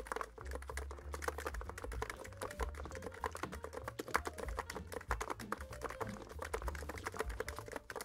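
Fast typing on a NiZ X99 Pro keyboard with electrostatic capacitive (EC) switches: a quick, continuous patter of keystrokes.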